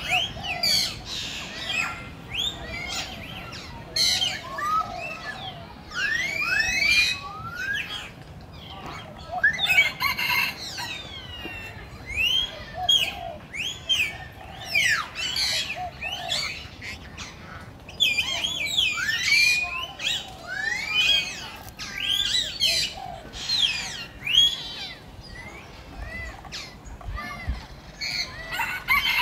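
Many short, high chirping calls, repeated and overlapping throughout, each rising and falling in pitch.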